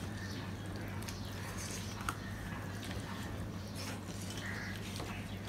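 Quiet eating by hand: fingers working rice against steel plates and faint chewing, with one sharp click about two seconds in, over a steady low hum.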